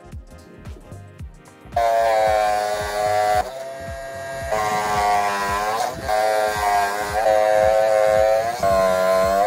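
A small homemade saw, a DC motor spinning a thin cutting disc, whines loudly as it cuts notches into a grey plastic disc to form sprocket teeth. The cuts start about two seconds in and come one after another with short breaks between. Background music with a steady beat plays underneath.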